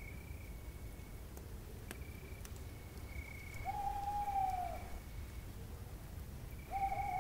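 Night ambience of insects chirring on a steady high note that comes and goes, with two long, level owl hoots of about a second each, one near the middle and one near the end, and a few faint clicks.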